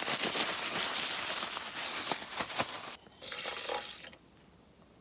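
Plastic bag of frozen seafood mix crinkling and rustling as it is handled. The crinkling breaks off sharply about three seconds in, with one shorter rustle before it goes quiet.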